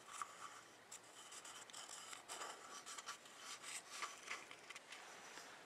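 Faint rubbing and scratching of fingers working a rubber O-ring onto the ridge of a hard plastic oil filter cap, busiest in the middle of the stretch.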